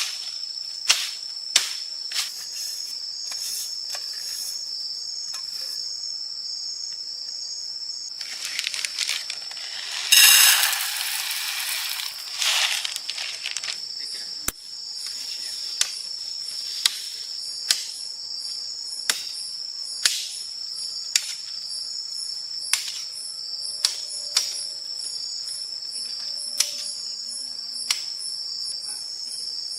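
Steady chorus of forest insects, a high unbroken buzzing, with sharp knocks and clicks at irregular intervals and a burst of rustling noise about ten seconds in.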